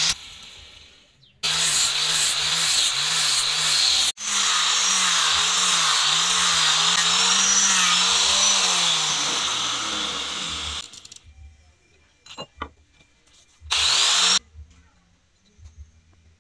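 Electric angle grinder with a sanding disc grinding a wooden axe handle, run in bursts: the motor pitch dips and recovers as the disc bears on the wood, and it spins down between bursts. After the long run it stops, leaving a few light knocks as the handle is handled, with one more short burst of the grinder near the end.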